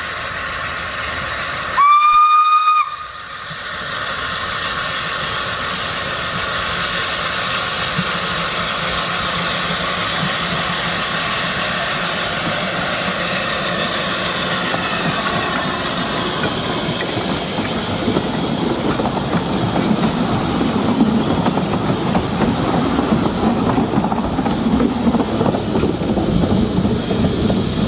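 A narrow-gauge steam locomotive gives one whistle blast of about a second, a clear steady tone. Then steam hisses as the train runs past, and the rumble of its wheels on the rails grows louder in the second half.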